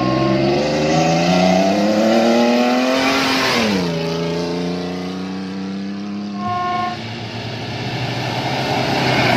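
Off-road rally pickup truck's engine accelerating hard, its pitch climbing for about three seconds and then dropping sharply as it passes, then running on steadily. A short horn toot about two-thirds in.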